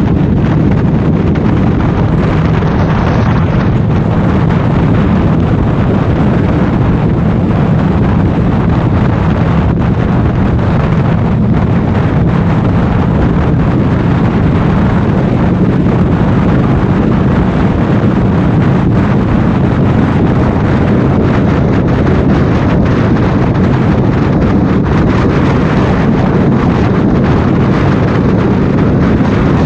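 Heavy wind rushing over the microphone of a camera mounted on a Harley-Davidson touring motorcycle cruising at highway speed. The engine and road noise run steadily underneath.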